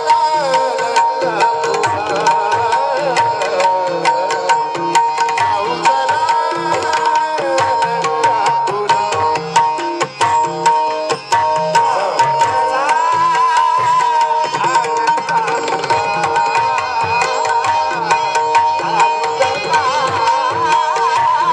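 Marathi devotional bhajan music: hand drums play a dense, steady rhythm under a gliding melody, over a held drone.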